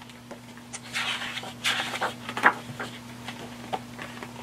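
Page of a large picture book being turned by hand: two papery swishes, then a sharp tap and a few soft ticks as the page settles.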